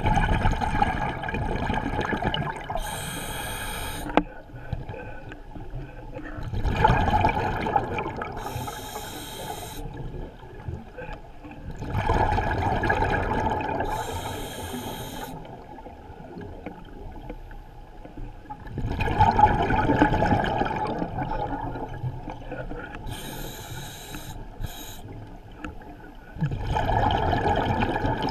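Scuba diver breathing through a regulator underwater: bubbly exhalations every six or seven seconds, with a short hiss of inhalation between them.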